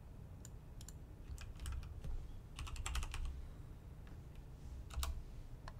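Computer keyboard typing: scattered key clicks, with a quick run of keystrokes from about two and a half to three seconds in.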